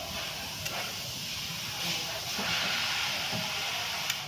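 A pressurised jet hissing steadily for about four seconds during a brake job, then cutting off suddenly near the end.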